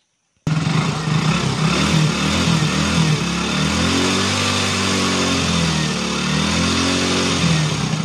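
Hero Splendor Plus BS6 motorcycle's single-cylinder engine running and revved, its pitch rising and falling a few times as the throttle is opened and closed to heat up the exhaust and catalytic converter. It starts abruptly about half a second in.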